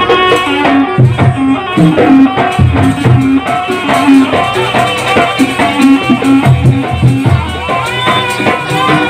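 Live jaranan dance music from a traditional Javanese ensemble: low drum strokes beating under a melody that bends in pitch, with rattling percussion.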